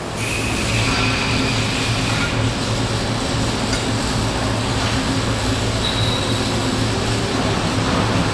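Steady industrial machinery noise from a metal fabrication shop floor, a continuous rushing noise over a low hum.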